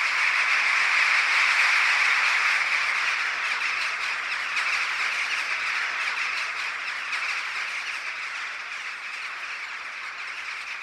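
A huge flock of rooks and jackdaws calling together at a roost: a continuous clamour of countless overlapping calls that swells over the first couple of seconds and then slowly fades.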